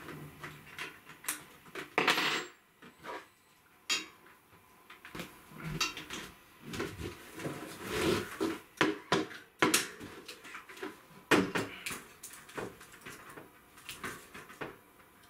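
Metal clicks, knocks and rattles from a mountain bike being worked on: a new saddle fitted on the seat post, then the bike shifting and its rack rattling as someone climbs on and off.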